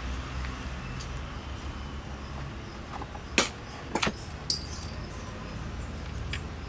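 A few sharp clicks and clatters as a scooter's seat is unlatched and lifted open, the loudest about three and a half seconds in and a quick cluster of smaller ones just after. A steady low hum runs underneath.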